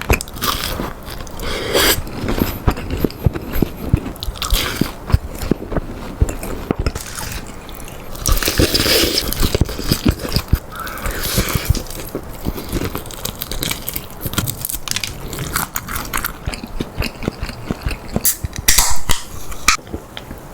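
Close-miked biting and chewing of crispy fried chicken: irregular crunches and crackles of the crust between chews, the loudest crunches near the end.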